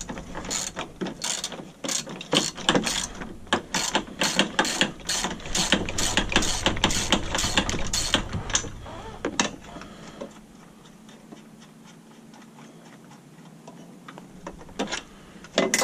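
Hand socket ratchet clicking, about four clicks a second, as it works a 13 mm nut loose against an adjustable wrench. The clicking stops about ten seconds in, with a few more clicks near the end.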